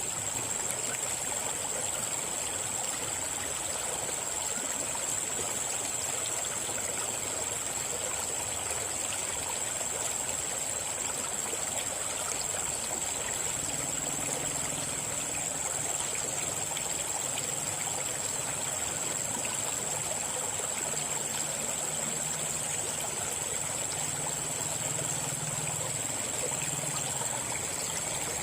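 River water flowing steadily over rocks, with a constant high-pitched whine running over it and a faint low hum that comes and goes in the second half.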